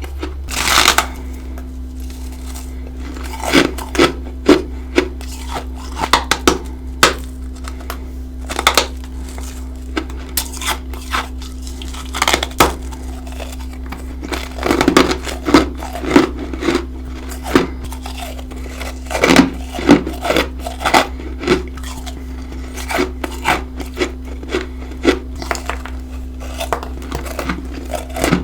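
Close-up biting and chewing of freezer frost: crisp, irregular crunches, several a second in clusters, over a steady low hum.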